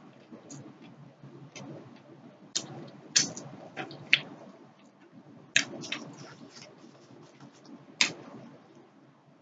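Close-up mouth sounds of eating fried fish: chewing with sharp, wet lip smacks and clicks, a cluster of them a few seconds in, as fingers are licked, and single loud smacks later on.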